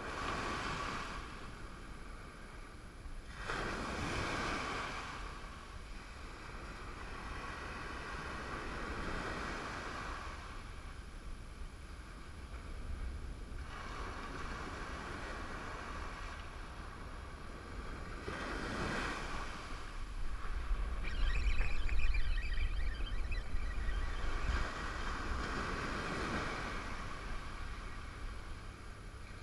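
Ocean surf breaking and washing up the beach, swelling and fading in several waves. Wind gusts buffet the microphone, loudest about two-thirds of the way through.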